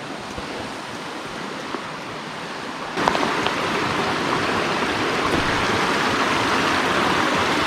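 Creek water rushing steadily over rocks and logs, becoming suddenly louder and fuller about three seconds in.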